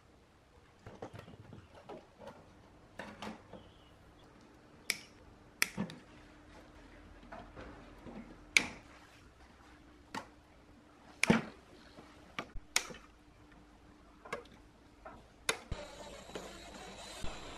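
Sharp, separate clicks and clacks of hand tools and wire cutters working inside a power amplifier's metal chassis. Near the end a cordless drill driver starts whirring at a screw on the amplifier's back panel.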